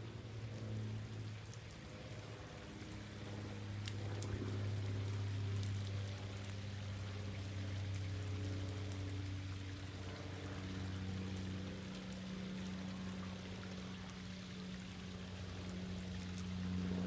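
Rain falling and water running and dripping down copper cup-style rain chains from the gutters, an even hiss with scattered sharp drips. A steady low hum runs underneath.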